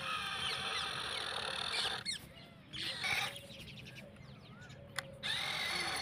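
Small electric motor and gearbox of a radio-controlled toy tractor whining steadily as it drags a cultivator through dry soil. The whine drops away briefly about two seconds in, and again for about a second from four seconds in.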